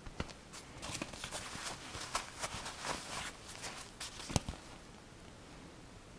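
Hands handling a fabric-and-leather tablet sleeve: a quick run of rustles, scrapes and small clicks over the first four and a half seconds, with the sharpest knock just after four seconds.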